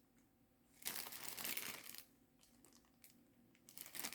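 Faint crinkling rustle of plastic being handled for about a second, then quiet, then a few short crinkles near the end.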